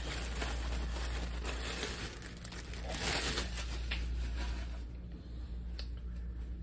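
Plastic wrapping crinkling and rustling as a folded T-shirt is pulled out and handled, louder about half a second in and around three seconds, quieter after about five seconds.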